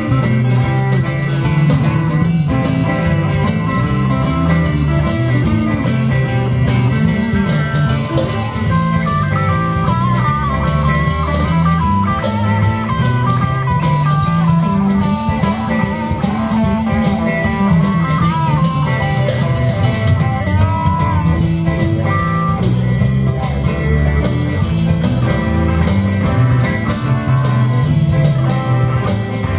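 Live band playing an instrumental passage with drums, bass, and electric and acoustic guitars. A lead line that bends in pitch weaves above the band through the middle.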